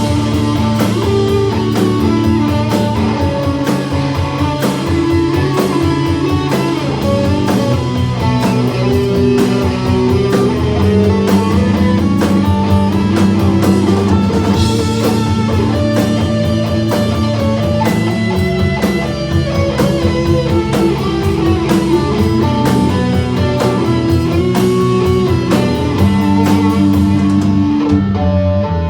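Rock band playing live: guitar over a steady drum-kit beat in an instrumental passage without vocals.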